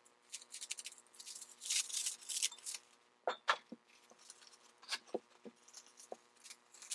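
Small surface-cleaner parts being handled by hand: a stretch of rustling, then a few light clicks and knocks of hard parts being picked up and set down.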